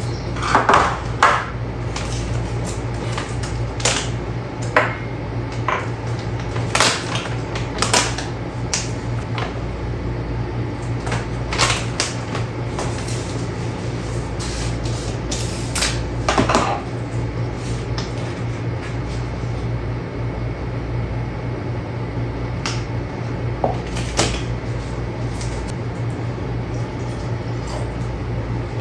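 Plastic and glass containers handled and set down on a countertop: scattered clinks, taps and knocks, a few louder ones in the first half. A steady low hum runs underneath.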